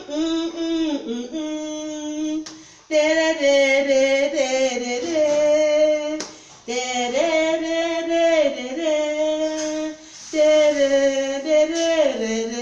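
A woman singing a gospel praise chorus unaccompanied, in long held notes that glide between pitches.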